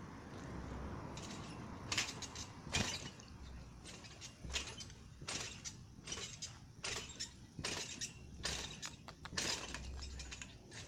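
Irregular clicks, taps and light scrapes of small plastic animal figurines being handled and moved on gravelly pavement, with low bumps of handling noise on the microphone.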